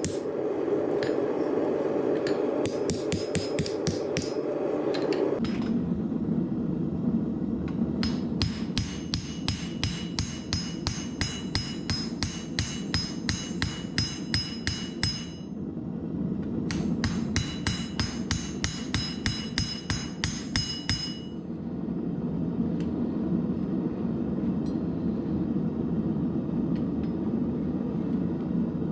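Hammer blows ringing on hot 5160 leaf-spring steel on an anvil, about three strikes a second, over the steady roar of a propane forge. The hammering breaks off briefly a little past halfway, and the ring is duller in the last few seconds.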